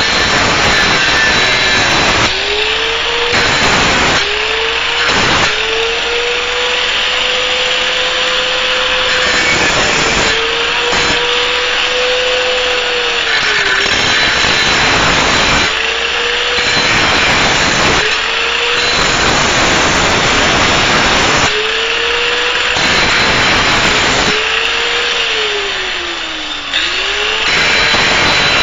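A Harbor Freight Drillmaster 4-1/2 in. angle grinder with a grinding wheel, grinding down a metal bolt head with a harsh grinding noise. The motor's whine sags in pitch over and over as the wheel bites into the metal, then rises again as the pressure eases, with the deepest dip near the end.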